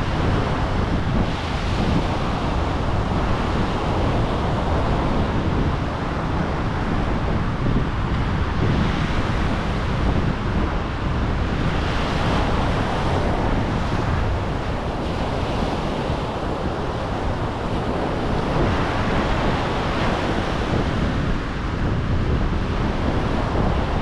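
Atlantic Ocean surf washing ashore in a continuous rush with a deep rumble, swelling every few seconds as waves break.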